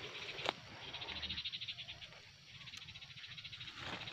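A rapidly pulsing, high-pitched chorus of calling animals that dips for a moment near the middle, with a sharp click about half a second in and low handling noise underneath.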